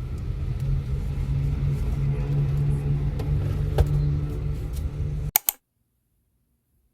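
Steady low rumble of a car in motion, with a held low tone and a few light clicks. A little past five seconds in come two sharp clicks, and the sound cuts off to near silence.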